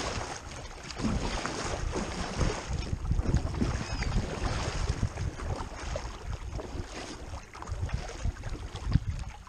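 Double-bladed kayak paddle strokes splashing and dripping in the water, with wind rumbling on the microphone.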